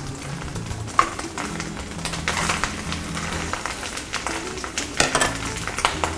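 A wooden spatula stirring and scraping in a sizzling frying pan as shrimp are stir-fried in butter with egg yolk and chillies. There is a sharp knock about a second in and a few clicks of the spatula near the end, over background music with held notes.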